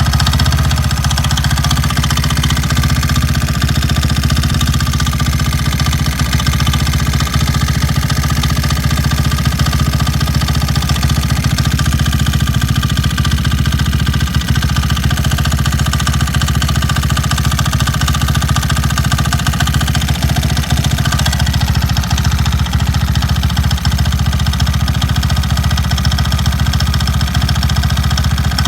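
Suzuki Address V125 scooter's single-cylinder four-stroke engine running steadily at idle, with an abnormal noise that the owner is recording.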